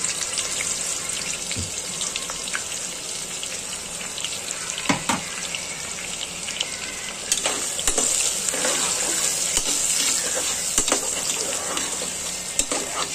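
Chopped onions sizzling in hot oil in an aluminium pressure cooker, a steady hiss. A few sharp knocks and scrapes of a metal ladle against the pot come through as the onions are stirred.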